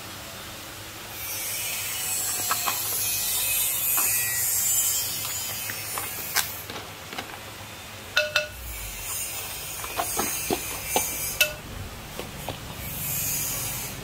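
Irregular clicks and knocks of a spoon and pestle against a clay som tam mortar as cooked seafood and a crab shell are tossed and handled in it, over a steady hiss.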